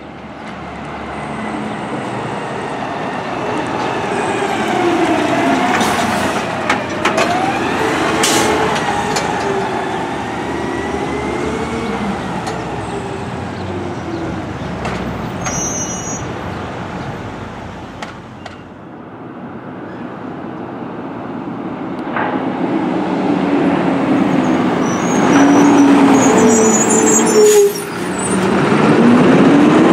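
Diesel side-loader garbage trucks driving past. The engine pitch rises and falls as they pull through and shift, with a few brief sharp noises along the way. The sound dips briefly past the middle, then a second truck passes close by and is loudest near the end.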